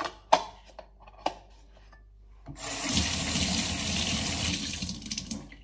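Kitchen tap running into a sink, a steady rush of water that starts about halfway through and stops shortly before the end, after two light knocks.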